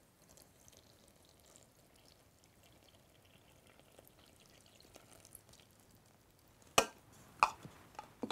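Water and oil poured together from a glass measuring jug and a plastic measuring cup onto flour in a glass bowl: a faint, quiet trickling pour. Near the end, two sharp knocks as the containers are set down.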